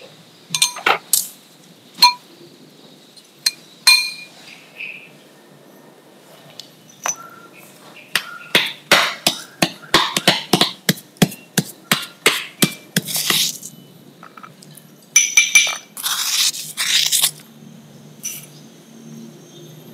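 A few light clinks of a ceramic bowl, then a stone pestle pounding lumps of gula melaka (coconut palm sugar) in a stone mortar: a fast run of sharp knocks over several seconds. After that, scraping as the mashed sugar is worked and spooned out of the mortar.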